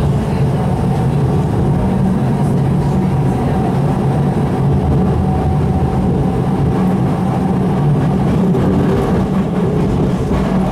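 TECO Line streetcar running along its track, heard from inside the car: a steady rumble with a constant low hum.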